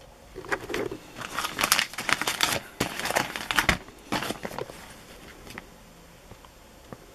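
Clear plastic wrapping on a fireworks pack crinkling as the pack is handled and turned over, in irregular bursts that stop about two seconds before the end.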